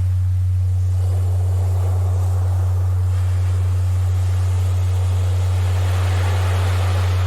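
A steady low tone of about 100 Hz, a Rife-style healing frequency, sounding over recorded ocean surf. The surf washes in and out, swelling about a second in and again near the end.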